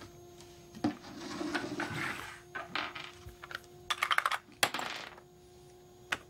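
Game pieces clicking and tapping on a small wooden board as they are moved, with a quick run of clicks about four seconds in. A faint steady tone hums underneath.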